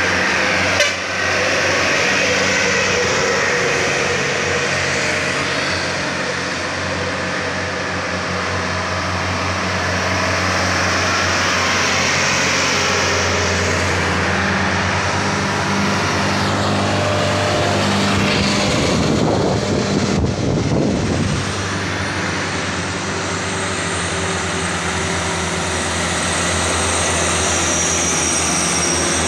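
Diesel engines of heavily loaded sugarcane trucks pulling hard up a steep bend, a steady, continuous engine drone. A louder rush of noise comes about two-thirds of the way through.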